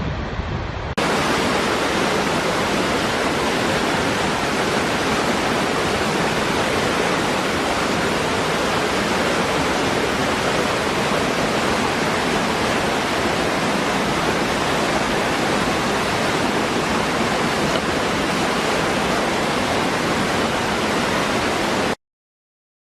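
Waterfall rushing as a steady, even noise that stops abruptly near the end.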